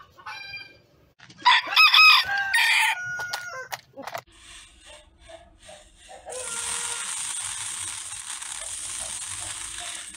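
A rooster crowing once, loud and about a second and a half long, starting about a second and a half in, with a shorter chicken call just before it. From about six seconds in, a steady hiss.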